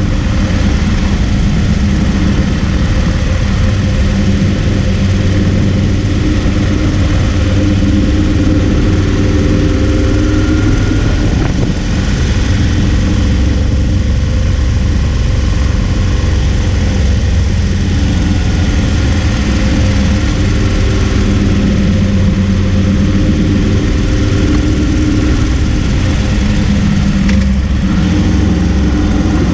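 Harley-Davidson Road King's V-twin engine running while the motorcycle is ridden along the road, a steady low engine note that shifts a little in pitch as the speed changes.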